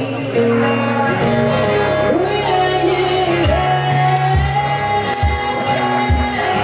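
A woman singing to her own acoustic guitar, holding one long note through the second half, with low thumps keeping time about once a second.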